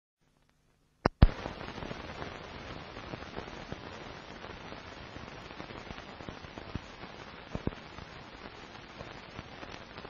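Crackle and hiss of an old film soundtrack with no program sound: two loud pops about a second in, then a steady hiss scattered with small clicks.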